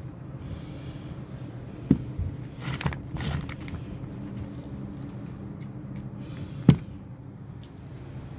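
Firework packages being handled: a few sharp knocks, the loudest about two-thirds of the way through, and brief rustling, over a steady low hum.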